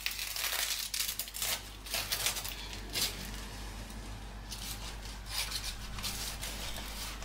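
Kitchen knife cutting through a toasted bread sandwich on a wooden board: a series of crisp, scraping, crunchy strokes as the blade saws through the toast crust.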